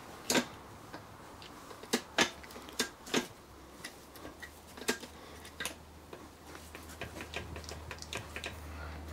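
Gear-shift linkage of a small five-speed manual gearbox being worked by hand through the gears, giving a series of irregular clicks and clunks as it moves and engages, over a faint low hum.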